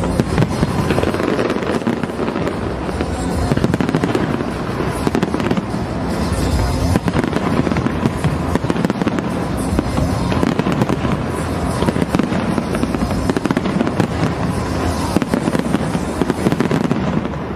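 Fireworks display: a dense, continuous barrage of bangs and crackling from many shells bursting at once, with no pause.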